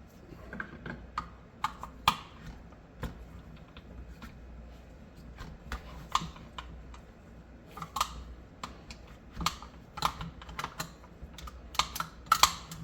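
Small metal parts of a 1951 Tula SKS rifle clicking and knocking together as they are handled and fitted back into place, in short irregular clicks with a few sharper knocks.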